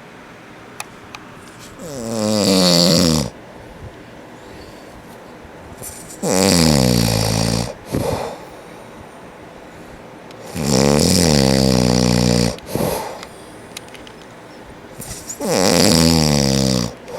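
A man snoring loudly in his sleep: four long, buzzy snores about one every four to five seconds, with quieter breathing between, and a short extra snort after two of them.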